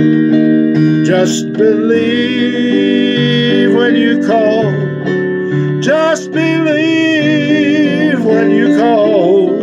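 A voice singing a slow melody with vibrato over sustained keyboard chords, with plucked-string accompaniment.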